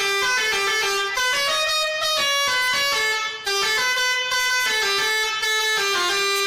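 Old-style multi-tone 'telolet' bus horn playing a tune: pitched horn notes stepping up and down one after another, with a brief break about halfway.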